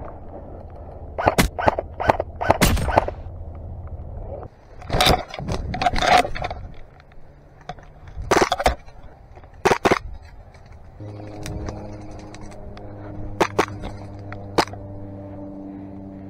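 Airsoft guns firing, including an AAP-01 gas blowback pistol: sharp cracks in quick clusters of several shots, then single shots spaced apart. About two-thirds of the way through a steady low pitched hum comes in under the shots.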